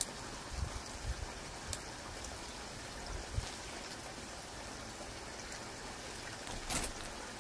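Steady outdoor hiss with a few soft low thumps in the first half and one short, sharp rustle near the end.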